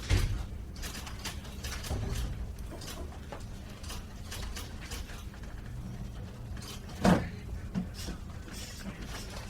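Office ambience: a steady low room hum with scattered small clicks and knocks, a heavy thump at the start and the loudest knock about seven seconds in, followed by a couple of lighter ones.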